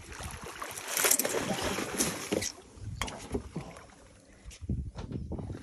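Water splashing at the surface beside a boat hull as a hooked barramundi thrashes, loudest between about one and two and a half seconds in, with a couple of sharp knocks.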